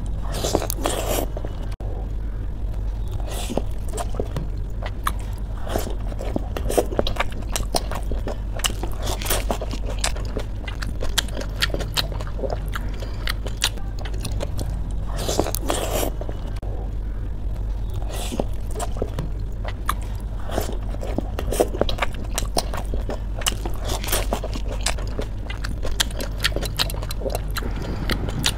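Pani puri being eaten: the crisp, hollow puri shells are bitten and chewed, making irregular crunching and chewing sounds. A steady low hum runs underneath.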